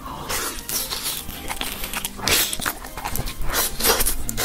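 Close-miked crunching and chewing of crispy fried food, a dense run of irregular crunches.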